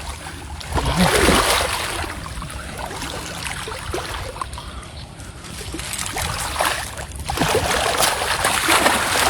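Water splashing and sloshing, in uneven surges, as large fish thrash while being caught.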